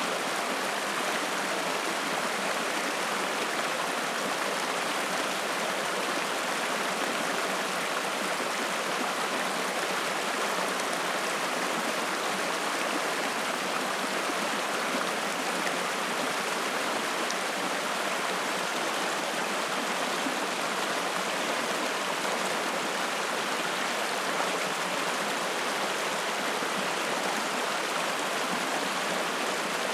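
Spring-fed mountain stream flowing and splashing, a steady, unbroken wash of water sound.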